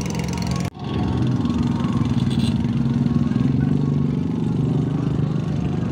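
An engine running steadily with a low, even drone. The sound cuts out sharply for a moment just under a second in.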